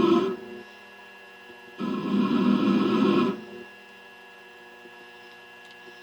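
Metal lathe running with a steady hum while a pointed carbide insert cuts a chamfer on the end of a steel collar in short passes. One cut ends right at the start, and another lasts about a second and a half, starting about two seconds in.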